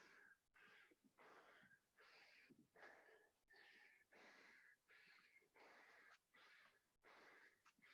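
Faint, fast, heavy breathing of a man out of breath from burpees: quick breaths in and out, about two a second, many with a thin wheezy whistle.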